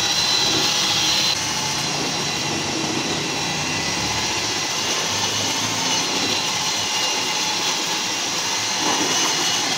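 Hand-held electric drill fitted with a long mixing rod running steadily, stirring a bucket of water-based distemper paint. Its sound drops a little about a second in.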